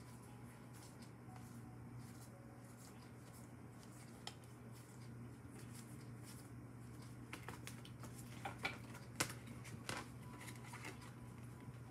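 Quiet room with a steady low hum; in the second half, a few soft clicks and rustles of paper being handled, as when drawing or handling oracle cards.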